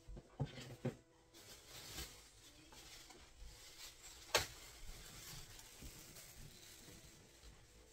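Light handling sounds: a few soft knocks in the first couple of seconds, a single sharper click or tap about four and a half seconds in, and faint rustling between them, like small objects being picked up and set down.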